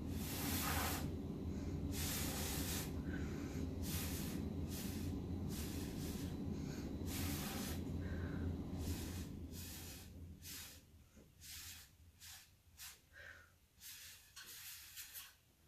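Breath blown through a paper straw onto wet acrylic paint: a long run of short airy puffs, one every half second to second. A low steady hum underneath fades out about two-thirds of the way through.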